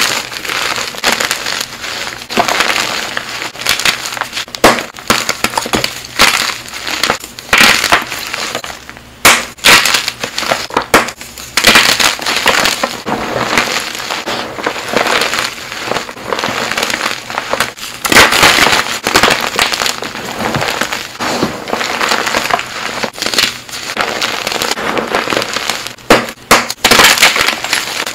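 Blocks of pearly gym chalk crushed and crumbled by hand into loose chalk powder: a continuous crunching full of sharp little cracks, with several louder surges as handfuls are squeezed.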